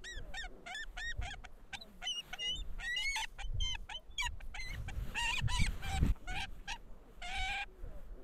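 A flock of geese calling: many short honks in quick succession, each rising and falling in pitch, with a few longer, harsher calls past the middle.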